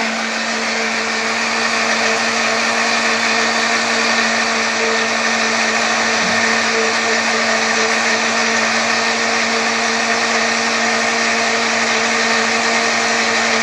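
Electric blender running steadily at constant speed, blending oil, pork lard and caustic soda solution into bar soap. A continuous motor hum with a steady pitch.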